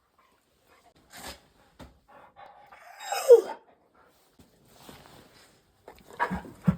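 Akita dog giving a short, falling 'wao-n' howl about three seconds in, an excited vocalization of a dog eager for its walk. A few soft knocks sound around it, two of them near the end.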